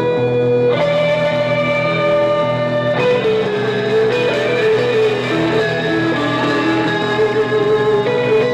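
Live instrumental music without singing: sustained notes under a melody that moves in small steps between pitches.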